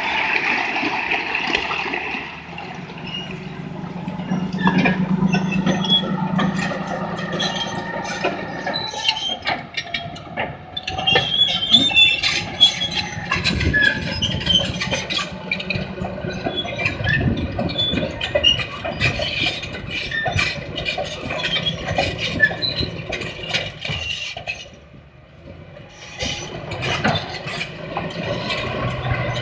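Caterpillar D10 crawler dozer's diesel engine working hard while its steel tracks clank and squeal over broken rock, with rock scraping and tumbling under the blade. The sound drops off briefly about 25 seconds in, then picks up again.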